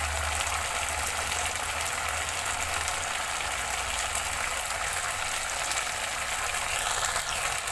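Chili and palm-sugar sauce bubbling and sizzling in a wok: a steady crackle of many small pops. A low hum underneath stops about three seconds in.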